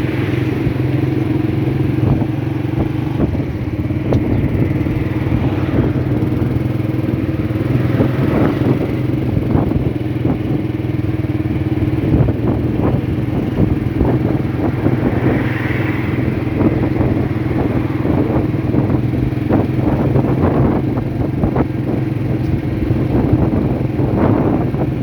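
Motorcycle engine running at a steady cruising speed while riding, its pitch holding level, with light rattles and clatter throughout.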